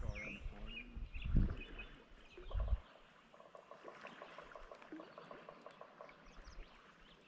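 Spinning reel being cranked, a fast even ticking from about three seconds in. Small birds chirp and a few low thumps come in the first seconds.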